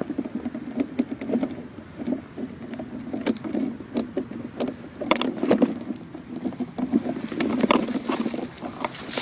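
Dry branches and brush crackling and rustling close to the microphone as someone moves and shifts about in a brush pile, with scattered sharp snaps.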